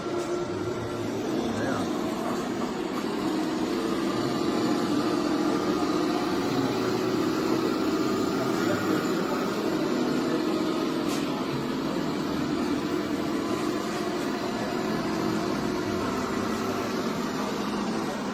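Scale radio-controlled construction machines running steadily, a continuous motor hum with no clear breaks.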